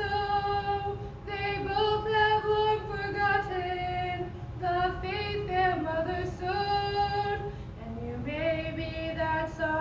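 Two female voices singing a gospel song together, in sustained phrases with short breaths between them.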